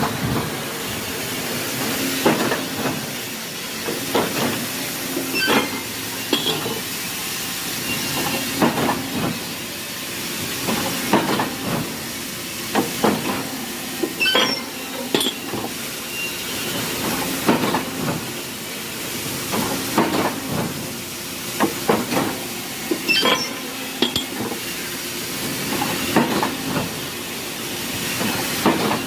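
Machine-shop machinery running: a steady hiss with clusters of metallic clanks and clicks that recur every two to three seconds.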